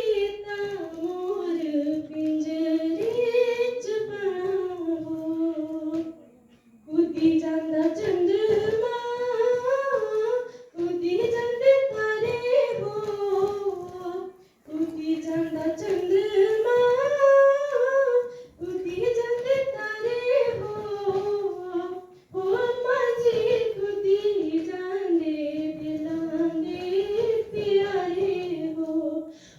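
A girl singing a Pahadi folk song unaccompanied, in phrases of about four seconds with short breaks for breath between them, her voice sliding and turning around the melody.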